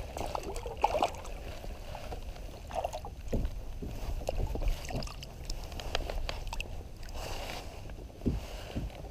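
Small largemouth bass splashing at the water's surface beside a kayak as it is landed by hand, with scattered small knocks and clicks and a low rumble of wind on the microphone.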